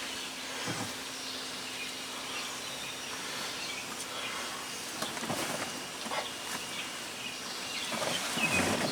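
Steering wheel being set back onto its splined steering shaft: a few soft knocks over a faint steady background hiss.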